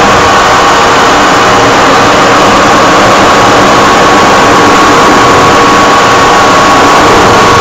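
Steady, loud jet-engine and airflow noise heard inside a jet aircraft's cockpit in flight, with a steady high whine that grows clearer about three seconds in.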